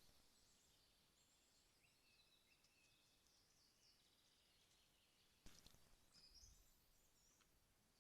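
Faint birdsong: scattered short chirps and whistles over a quiet hiss. A single sharp click about five and a half seconds in.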